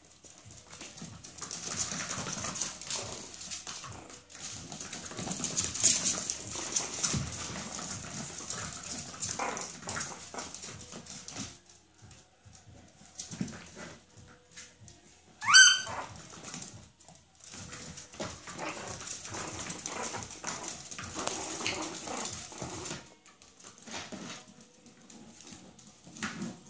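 Young Chihuahua puppies scuffling and play-wrestling, their paws scrabbling on the floor. One brief high-pitched yelp, rising in pitch and louder than the rest, comes a little past halfway.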